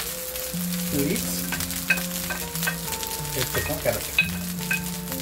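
Cooked basmati rice sizzling as it fries in a hot non-stick pan and is stirred, with scattered light clicks of the utensil against the pan. Near the end, julienned carrots and leeks are dropped onto the rice.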